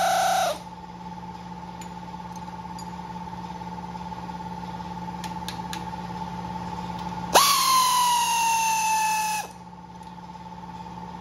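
A power tool whines for about two seconds, starting suddenly and sagging slightly in pitch before stopping, over a steady hum from a running air compressor. A few light clicks come shortly before it.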